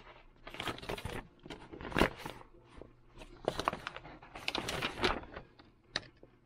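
Paper rustling in irregular strokes as a folded instruction sheet is handled and opened out, the loudest stroke about two seconds in.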